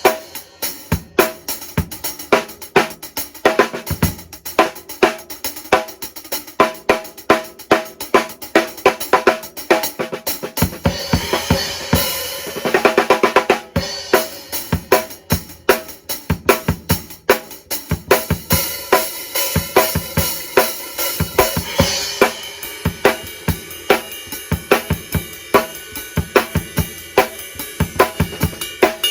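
Drum kit played in a steady groove to sound-test a set of bronze cymbals: a quick, even pattern of drum and cymbal strikes, with crash cymbals washing out twice, once about eleven seconds in and again from about eighteen to twenty-two seconds.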